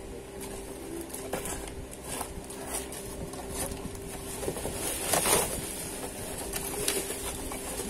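Cardboard shipping box being handled and picked open at one end: scraping and tapping on the cardboard, the loudest a rasping scrape about five seconds in, over a steady low hum.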